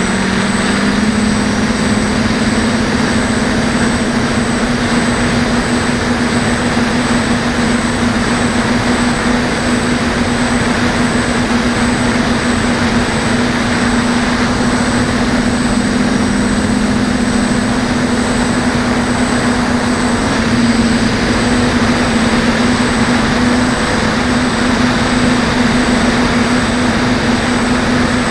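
DJI F450 quadcopter's brushless motors and propellers buzzing steadily in flight, heard close up from its onboard camera, with a rushing hiss over the buzz; the pitch shifts slightly as the throttle changes.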